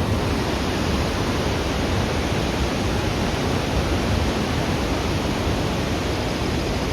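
Steady rushing roar of a large waterfall, an even wash of noise with a deep rumble underneath.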